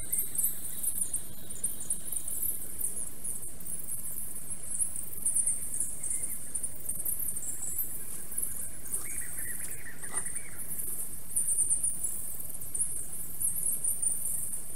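Forest birdsong from the nest camera's microphone, played sped up with the time-lapse so it comes out as a dense, very high-pitched squeaky twittering. A brief lower call stands out about nine seconds in.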